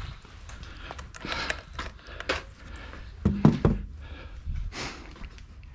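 Handling noise of a small action camera being moved about: scattered knocks and rustles, with a few louder low thumps about three and a half seconds in.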